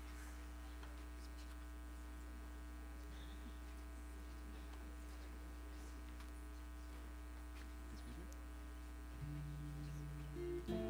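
Steady electrical mains hum on the audio feed, with faint scattered ticks. Near the end, music starts with held notes.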